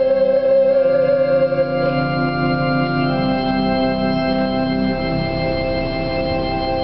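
Organ playing slow, sustained chords, moving to new chords about two and three seconds in.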